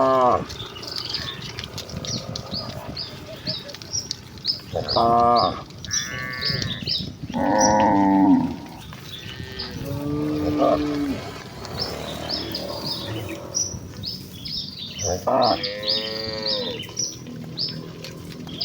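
Village cattle mooing: about six separate moos of different pitches, some short and some drawn out and falling in pitch, with a rapid high chirping going on underneath.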